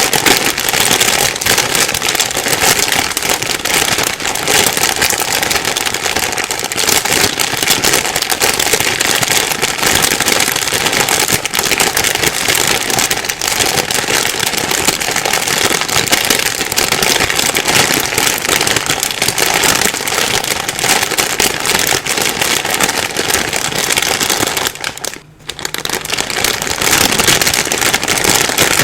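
Plastic bag being rustled and crumpled: a continuous dense crackling, with a brief pause about 25 seconds in.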